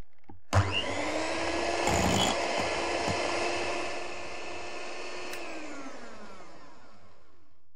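Handheld electric whisk starting up with a click and whipping cream in a glass measuring jug, a steady motor whine. The whine is loudest about two seconds in, then grows quieter and drops in pitch as the motor slows near the end.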